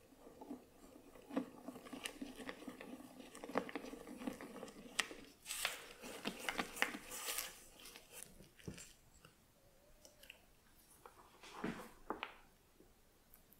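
Spatula scraping and stirring in a stainless steel mixing bowl, working flour into a thick egg-yolk batter in irregular strokes and clicks. A faint steady hum runs under the first few seconds. Near the end there is a short burst of stirring in a small bowl of melted butter.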